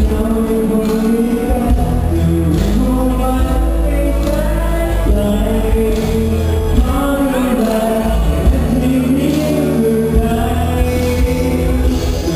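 A live band playing with a male voice singing over steady bass and drums.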